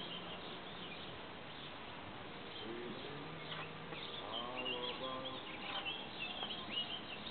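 Faint outdoor background of small birds chirping and twittering throughout, with faint distant voices about three to five seconds in.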